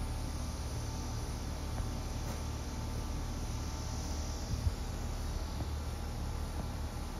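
Outdoor background of insects chirring, a steady high hiss that swells over the first few seconds, over a constant low hum. One soft knock a little past halfway.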